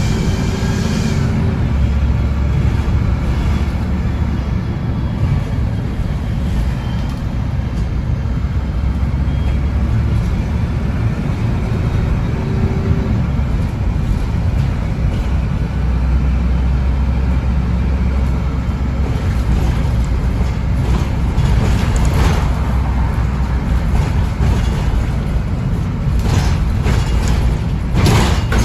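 MAN 18.240 single-deck bus engine heard from on board, with a deep rumble that swells twice as the bus pulls under load. Short bursts of hiss come near the end.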